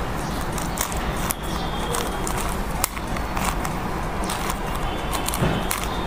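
Plastic Rubik's cube being twisted quickly by hand: a run of irregular small clicks over a steady background hiss.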